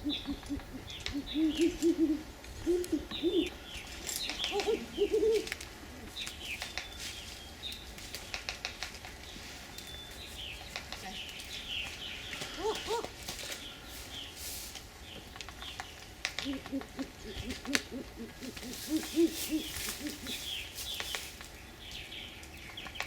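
Great horned owl hooting in clusters of short, low calls, with high chirping calls and many sharp clicks in between.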